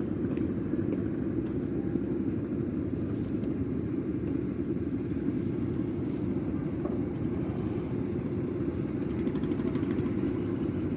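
Steady low rumble, even in level throughout, with a few faint ticks.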